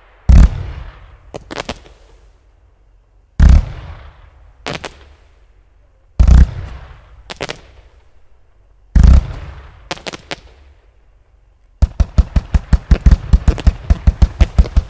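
105-shot consumer firework zipper cake firing. Four single shots come about three seconds apart, each a loud boom followed about a second later by a few sharper cracks. Near the end the cake goes into a rapid zipper run of about eight shots a second.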